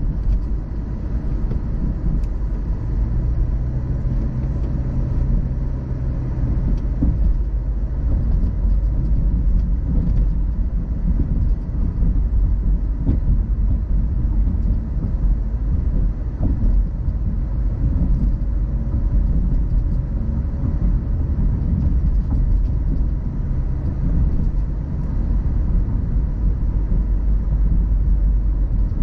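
A car driving along a road: a steady low rumble of tyre and engine noise with no sudden events.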